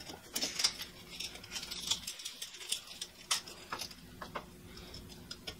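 Irregular light clicks, taps and scratches of a steel tape measure and a pencil being handled against a wall while marking a measurement.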